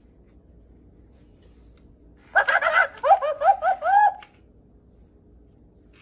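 Hasbro Squawkers McCaw animatronic toy parrot playing a high-pitched, laugh-like voice clip through its small speaker, a couple of seconds in: a short burst, then about five quick rising calls, lasting about two seconds.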